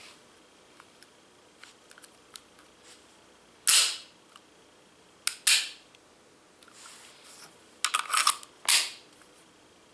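Sharp metallic clacks and clicks of a Beretta pistol's metal parts being handled and worked. The clacks are scattered at first, then come in a quick cluster near the end.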